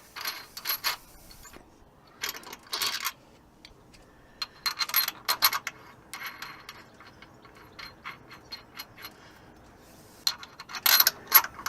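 Metal tools and parts clinking and scraping in short, scattered bursts with quiet gaps between them, as the crankshaft locking tool is taken off the engine.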